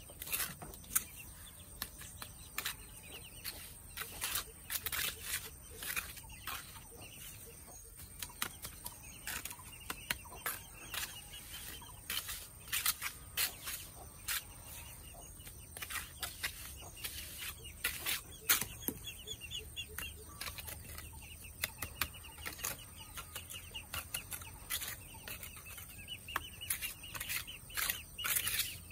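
Chickens clucking, over many sharp knocks and clicks scattered throughout, the loudest a little past halfway.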